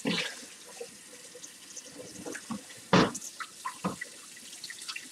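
Kitchen tap running into a sink, water splashing over a hot boiled egg held under it to cool it for peeling, with a few knocks, the loudest about three seconds in.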